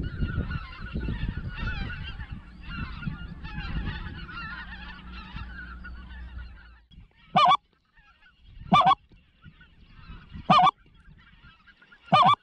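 A flock of wild geese calling in flight, many overlapping honks over a low rumble. About seven seconds in the chatter falls away, and four loud single honks follow, roughly a second and a half apart.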